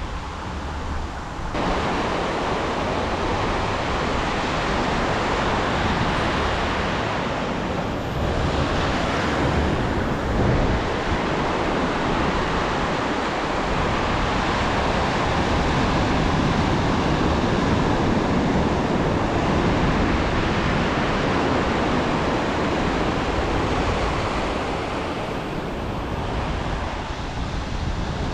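Ocean surf breaking and whitewater washing over the sand close by, a steady rush that swells and eases as the waves come in, with wind buffeting the microphone.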